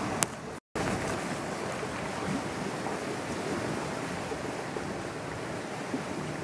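Steady rushing outdoor background noise with no distinct source, broken by one sharp click just after the start and a brief dropout where the audio cuts out for a moment under a second in.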